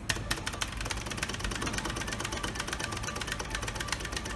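A Merkur slot machine ticking fast and evenly, many clicks a second, while its risk ladder (Ausspielung) runs on a 320 win.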